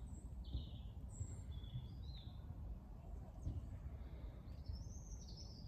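Small birds chirping, short high calls and trills scattered through, the busiest near the end, over a faint steady low rumble.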